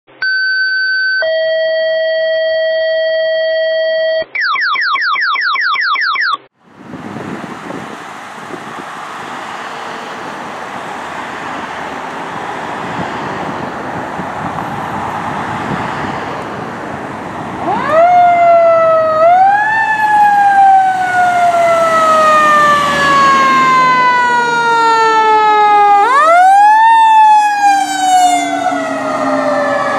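Electronic alert tones first: a steady high tone, a longer lower tone, then a quick run of rising sweeps. Then the noise of an approaching fire engine grows, and about halfway through its siren starts wailing loudly, each cycle rising quickly and falling slowly in pitch.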